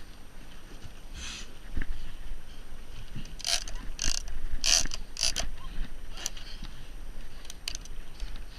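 Big-game fishing reel working under load: a run of short ratcheting, whirring bursts from the reel's mechanism, clustered in the middle, over a low steady rumble from the boat.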